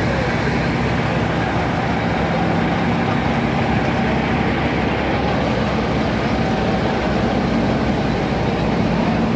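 A large engine running steadily: a constant low hum over a wide rushing noise, with no change in pace.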